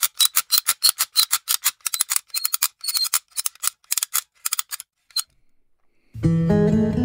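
Typing sound effect: rapid keyboard or typewriter clicks, about five a second, stopping about five seconds in. About six seconds in, acoustic guitar music begins.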